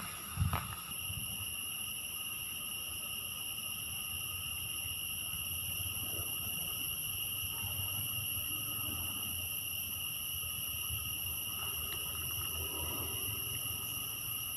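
Steady, high-pitched drone of an insect chorus from the surrounding trees, with an uneven low rumble beneath it and a brief knock about half a second in.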